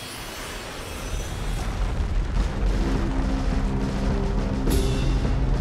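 Background score music swelling, its loudness rising over the first two seconds, with a deep rumble beneath held tones.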